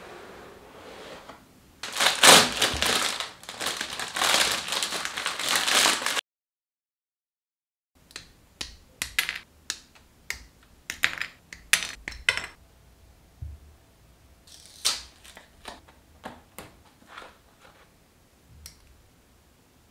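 A plastic model kit box being opened and handled, loud rustling and crinkling for several seconds. After a sudden gap of silence, hobby side-cutters snip plastic parts off the runners: a string of sharp clicks, a dozen or so, spaced irregularly.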